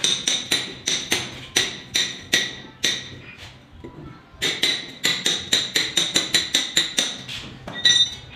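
Hammer blows on a steel chisel cutting a recess into a plastered masonry wall: a run of sharp, ringing metallic strikes about two to three a second, pausing briefly in the middle, then one last clink near the end.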